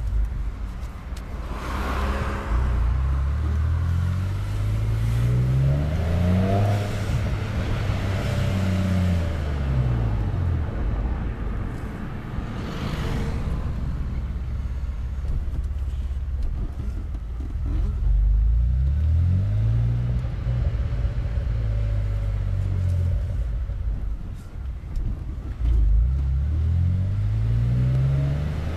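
Opel Vectra OPC engine through a full straight-through 76 mm exhaust, revved up and let fall back several times, idling low between revs. Two short hissing rushes come in between.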